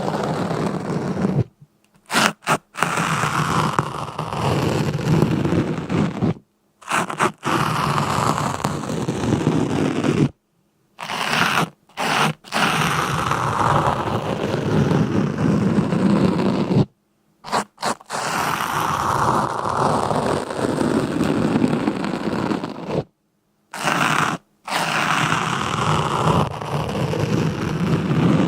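Rough scraping and crunching noise in stretches of a few seconds, broken several times by sudden short silences.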